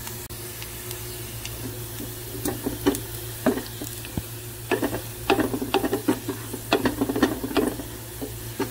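Wooden spatula stirring and scraping chopped garlic as it fries in oil in a pot, over a steady sizzle. The stirring strokes come thicker and louder from about halfway.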